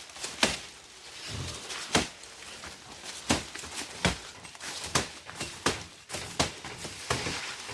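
Panga (machete) chopping into the base of a sugarcane stalk: about eight sharp strikes, roughly one a second.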